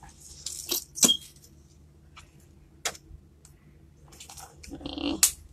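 A squeezed plastic bottle of Elmer's gold glitter glue giving a few scattered sharp clicks and crackles as thick glue is forced out, with a short soft squelch near the end.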